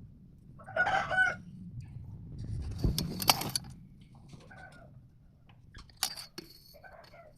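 A short pitched animal call about a second in, with fainter calls later, and a few sharp clicks or taps around three and six seconds in.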